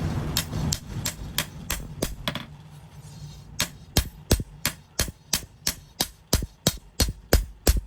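Hand hammer striking steel on an anvil while forging a blade: regular blows about three a second, with a brief pause about a third of the way in. A steady rushing noise fades out over the first couple of seconds.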